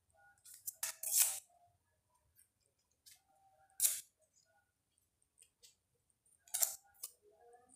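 Paper rustling and crinkling in a few short bursts as small pieces of yellow paper are handled and pressed onto a glued sheet.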